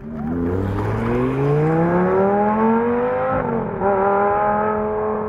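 A sports car's engine accelerating hard, its pitch climbing steadily, then an upshift about three and a half seconds in, after which it pulls on at a steadier pitch.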